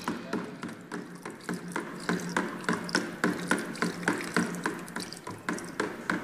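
A metal stirrer clicking steadily against the side of a plastic basin, about four clicks a second, as a liquid fabric-softener mixture is stirred.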